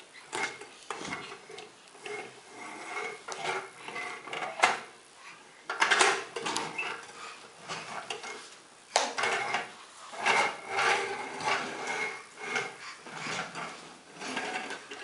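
Plastic toy tractor pushed along a hardwood floor, its wheels rolling and rattling with irregular clacks and knocks.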